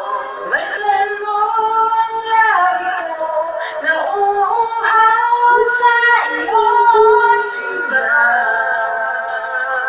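Husky howling along with pop-ballad music, in long drawn-out notes that waver and slide up and down in pitch.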